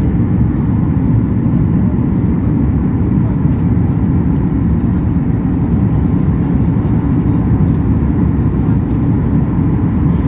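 Steady, even rumble of airliner cabin noise: jet engines and airflow heard from inside the passenger cabin.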